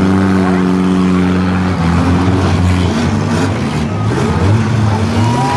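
Compact demolition derby cars' four- and six-cylinder engines revving, their pitch rising and falling, over a steady noisy din.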